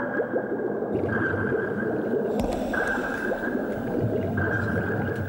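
Steady underwater bubbling and gurgling of bathwater, heard as if from below the surface.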